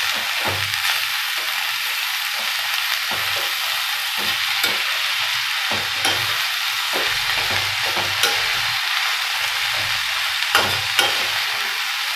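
Oil sizzling in a stainless steel kadhai while a steel spatula stirs and turns a heap of chopped amaranth (chavli) leaves into the fried onion. The spatula scrapes repeatedly against the pan, with a couple of sharper clinks near the end.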